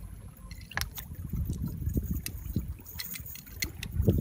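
Wet squelching and dribbling of water and mud as hands work a cast net and pick fish from shallow mud, with a few scattered small clicks.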